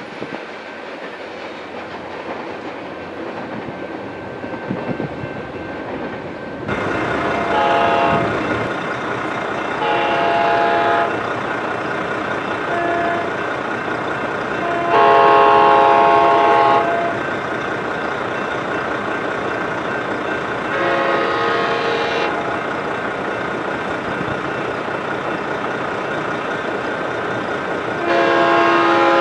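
Horn of an approaching Amtrak San Joaquins passenger locomotive, sounding about six chords, some short and some up to two seconds long, over the steady rumble of the oncoming train.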